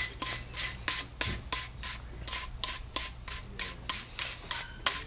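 Steel wire brush scrubbed quickly back and forth over a cast brake caliper mount, about four scratchy strokes a second, scouring corrosion scale and old brake-pad debris off the seats where the pad sliders sit.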